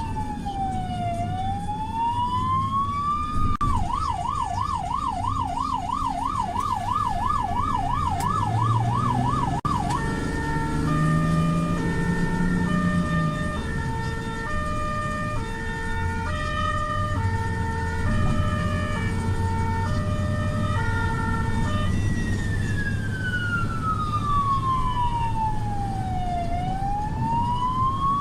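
Belgian ambulance siren cycling through its modes: a slow rising and falling wail, then about four seconds in a fast yelp of roughly three sweeps a second, then about ten seconds in a two-tone hi-lo, then back to the slow wail about 22 seconds in. A low engine rumble runs underneath.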